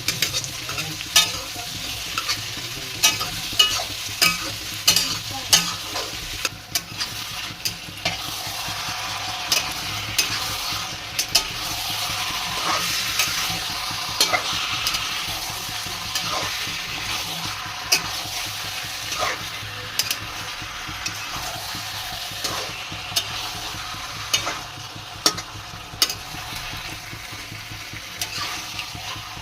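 Food sizzling as it fries in hot oil in a pan, stirred with a metal spatula or ladle that scrapes and clinks against the pan many times. The clinks are frequent in the first few seconds and again near the end, and the sizzle is steadiest in the middle.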